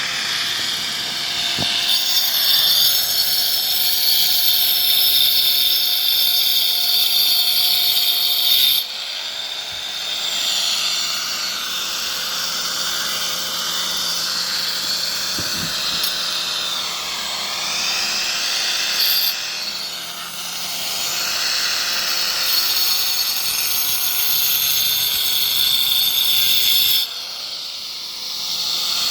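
Handheld electric power tool cutting a groove along a crack in a wall, its motor whining steadily under a harsh grinding noise. The cutting is heavier for the first several seconds and again later on, and the motor pitch dips briefly twice as it is loaded, about nine seconds in and near the end.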